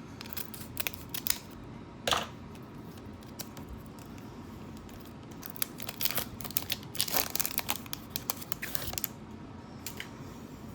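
Foil wrapper of a Pokémon card booster pack crinkling and tearing open in short bursts, with a sharp rip about two seconds in and the busiest crinkling from about five to nine seconds in.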